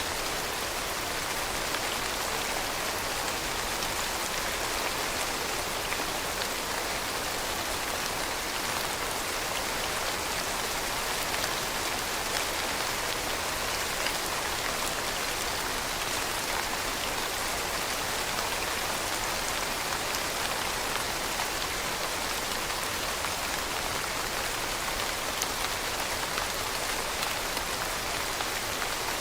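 Steady rain falling on a surface, an even hiss of drops with faint individual drop ticks scattered through it.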